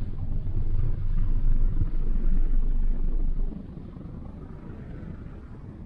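Wind buffeting the microphone: a loud, low, uneven rumble that eases off about three and a half seconds in.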